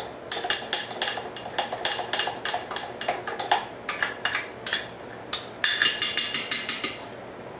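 Spoon stirring liquid marinade in a glass blender jar, clinking irregularly against the glass several times a second, with a quicker run of clinks near the end before it stops.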